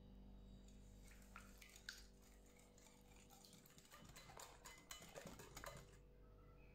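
Wire balloon whisk beating egg, sugar and oil in a glass bowl: faint, quick clicks and taps of the wires against the glass, coming thicker in the last couple of seconds before stopping.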